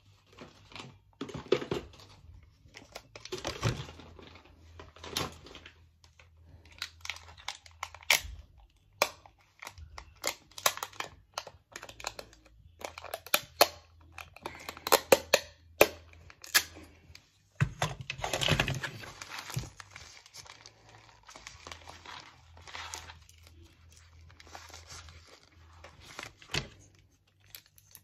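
Adhesive tape being pulled and torn from a small handheld tape dispenser in irregular rips, with crinkling and clicks as the dispenser and package are handled.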